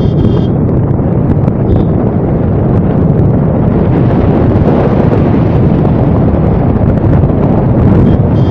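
Wind buffeting the microphone and road noise of a moving car, a loud steady rush heaviest in the lows. A short high tone sounds near the start and again near the end.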